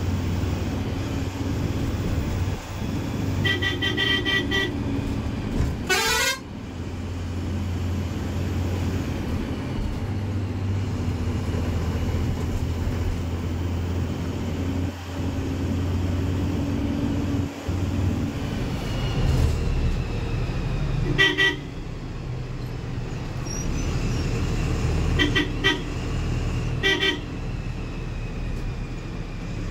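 Steady diesel engine and road noise inside the cab of a moving Ashok Leyland BS VI coach, broken by short vehicle horn blasts: one a few seconds in followed by a quick falling tone, another about two-thirds of the way through, and two more near the end.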